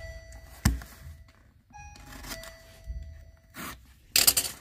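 A box cutter scraping and slicing through the packing tape on a small cardboard box, with a single thump of the box on the table less than a second in. Near the end comes a loud, brief rasp as the taped flaps are torn open.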